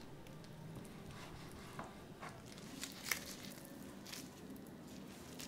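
Faint soft taps and squishes of bread dough being cut with a plastic bench scraper on a wooden board and handled by gloved hands, a few scattered taps with the sharpest about three seconds in.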